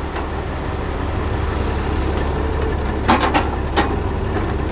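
Heavy diesel engine running steadily under a log loader at work, with a few sharp knocks about three seconds in, like logs bumping as they are set on the truck.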